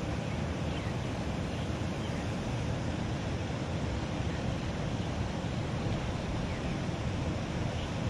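Steady rushing of water pouring from a drainage outlet into a ditch.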